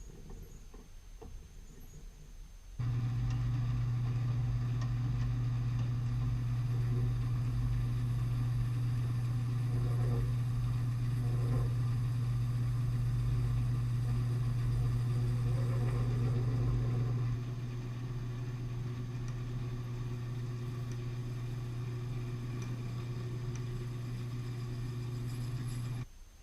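A lathe's electric motor running at a steady pitch. It starts suddenly about three seconds in, drops a little in level about two-thirds of the way through, and stops shortly before the end.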